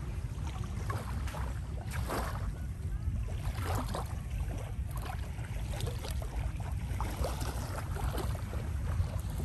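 Wind buffeting the phone's microphone as a steady low rumble, with scattered faint rustles and knocks from the phone being handled.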